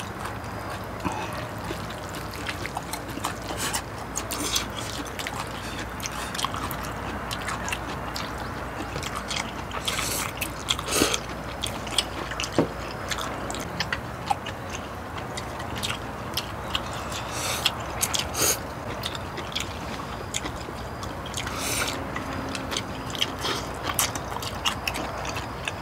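Eating sounds of a mukbang: chopsticks and spoons clicking against bowls, plates and the pot, with chewing and short slurps over a steady background hiss.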